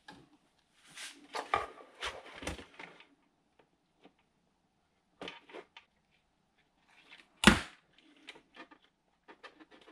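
Workbench handling noises: a cloth rubbed over a 3D-printed plastic plane fuselage for a couple of seconds, then scattered light clicks and one sharp knock about seven and a half seconds in.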